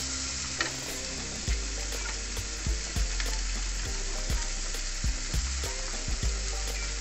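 Diced onion sizzling as it fries in melted butter in a nonstick pan, with a wooden spatula stirring it and knocking against the pan now and then.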